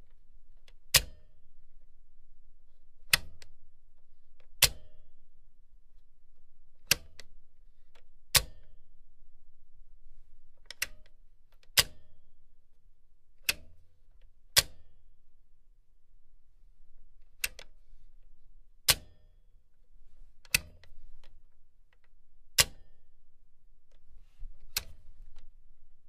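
A machine's switch being clicked repeatedly: about fourteen sharp clicks every one to two seconds, over a low steady hum.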